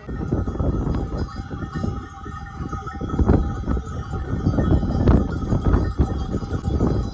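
Livestock bells clanking and ringing, with a jumble of knocks over a steady low rumble.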